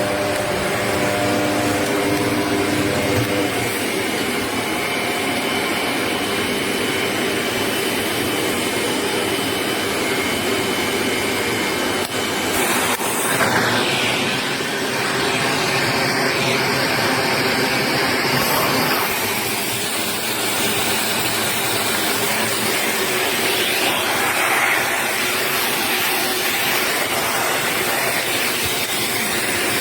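Shark NZ801UKT upright vacuum cleaner running with a steady motor whir and airflow. Its sound shifts about twelve seconds in.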